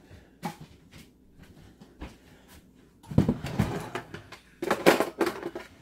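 A wooden kitchen drawer full of utensils pulled open about three seconds in, then metal utensils rattling and clattering in irregular bursts as they are rummaged through.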